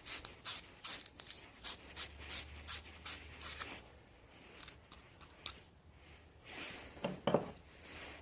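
A 1/2-inch wire fitting brush scrubbing the inside of a copper pipe fitting to clean it for soldering: short, scratchy strokes about two or three a second, easing off about halfway through. A short, louder sound comes about a second before the end.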